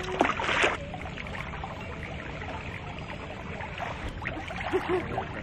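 A splash as a person slides into a swimming pool about half a second in, then water sloshing steadily around the swimmers.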